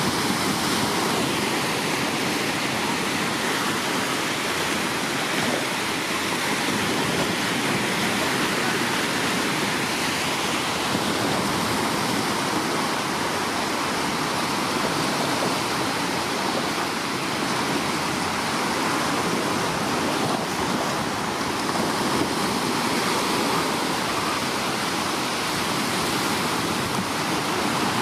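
Sea surf breaking and washing up the shore in a steady rush of noise.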